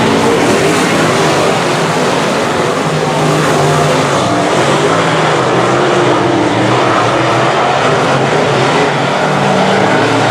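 A field of semi late model race cars running together around the track, several engines overlapping with pitches rising and falling as they pass.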